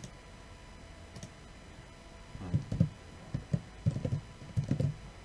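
Computer keyboard keys pressed in a quick, uneven run of about ten strokes, starting about two and a half seconds in, after a couple of faint clicks earlier.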